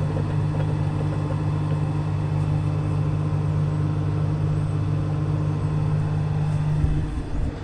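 Swather's engine running at a steady idle, a low even hum that breaks off about seven seconds in.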